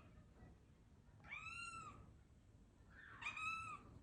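Domestic cat meowing twice, two short, high-pitched, arching meows about a second and a half apart.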